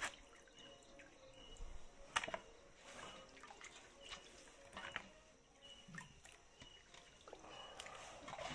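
Faint drips and small splashes of water as wet pieces of fish are lifted out of a basin of rinse water and set into a plastic bowl, with a few soft clicks scattered through.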